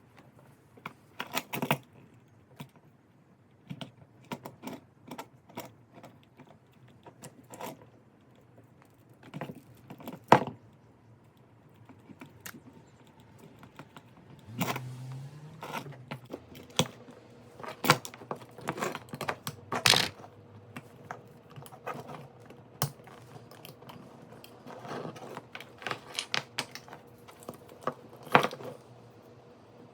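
Irregular clicks, taps and light rattling of small hard parts and tools being handled during wiring work on a light dimmer switch, with a brief low hum about halfway through.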